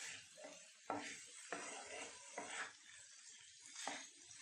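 Chicken in a thick spice masala sizzling on a nonstick tawa while a spatula stirs and scrapes it across the pan, with several sharper scrapes. This is the dry roasting (bhuna) stage on medium to high heat.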